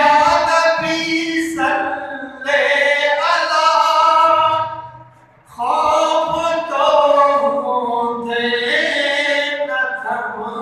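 A man singing a naat unaccompanied: long, held devotional phrases with a pause for breath about five seconds in.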